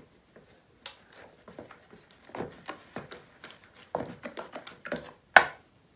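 Plastic spoon stirring a thick glue slime mixture in a plastic bowl: irregular soft scrapes and taps of spoon against bowl, with one sharp click about five seconds in.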